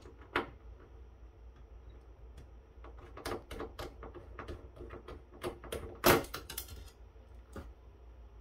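Small clicks and taps of a precision screwdriver and a loose screw being handled on the metal chassis of a network switch while a power-supply screw is taken out, with one louder knock about six seconds in.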